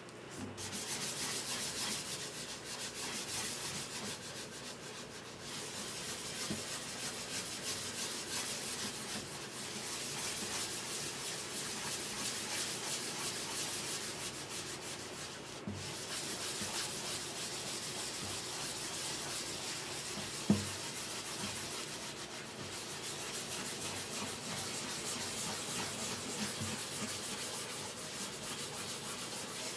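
Hand sanding on a guitar's wood: a steady rasping of rapid strokes that pauses briefly a few times, with one sharp knock about twenty seconds in.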